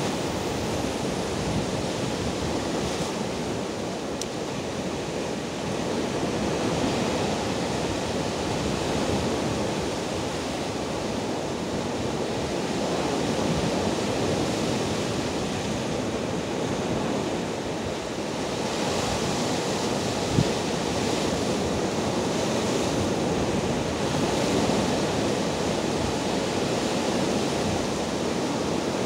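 Rough Black Sea waves breaking and washing over shoreline rocks: continuous surf that swells and eases slowly. A single brief click about two-thirds of the way through.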